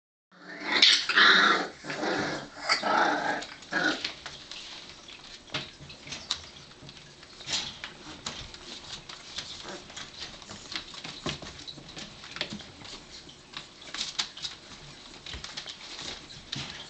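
Four-week-old bull terrier puppies vocalizing in play, with a run of loud growly yaps in the first four seconds. After that come quieter scuffling and scattered small clicks and taps as they move about.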